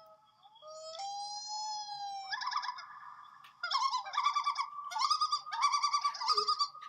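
Cartoon tweeting-birds sound effect, the dizzy birds-circling-the-head kind: a high whistle-like tone starts about a second in, then turns into fast warbling chirps from about two seconds in.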